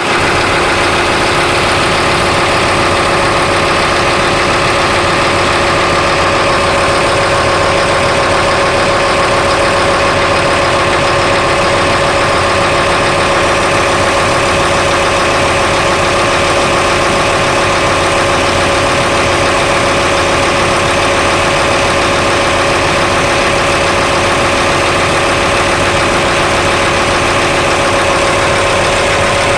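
Engine idling steadily, with a steady high tone over the running, whose sound is flagged as abnormal.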